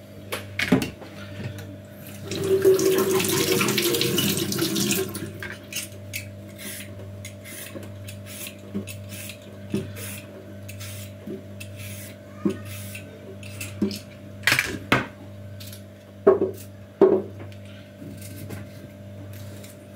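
Kitchen tap water runs for about three seconds, then a small knife clicks and taps as a cucumber is cut in the hand. A few louder knocks come near the end, over a steady low hum.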